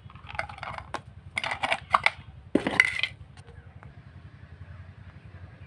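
Clicks, scrapes and metallic clatter from a Bosch angle grinder's lock nut and abrasive cutting disc being taken off the spindle by hand, in a few short bursts over the first three seconds.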